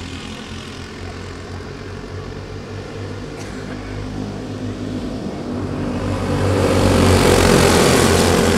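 Several racing go-kart engines running at speed in a pack, getting louder about two-thirds of the way in as the karts pass close by.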